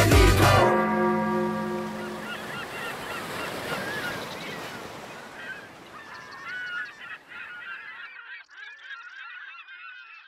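The last notes of music stop about a second in and fade away, then a flock of gulls calls: many short cries that rise and fall in pitch, growing busier near the end.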